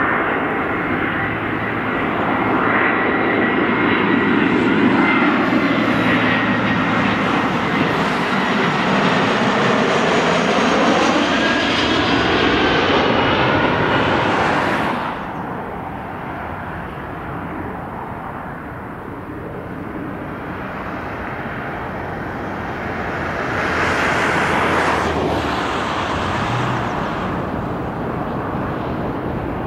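Jet engines of an Airbus A320 on final approach passing close overhead: a whine over a broad rushing noise that sweeps in tone as the aircraft goes by. About halfway through the sound cuts off abruptly to the fainter jet noise of a Boeing 777 approaching from a distance, which swells a little near the end.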